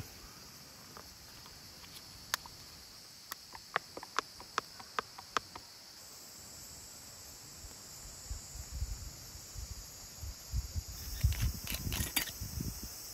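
Insects chirring steadily in a high-pitched chorus. A few seconds in comes a run of about seven sharp clicks, a little over two a second, and near the end there is rustling and knocking of things being handled close by.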